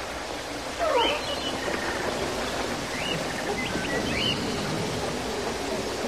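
A few short animal calls, high chirps and one lower falling call about a second in, over a steady background hiss.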